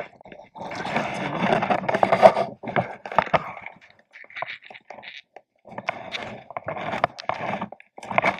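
Hands splashing and swishing in shallow river water, in irregular bursts, followed by scattered rustling and clicking handling noise.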